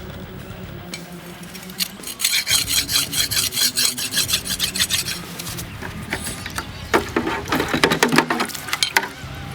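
Hand file scraping across a steel spearhead in quick back-and-forth strokes, in two spells with a pause between.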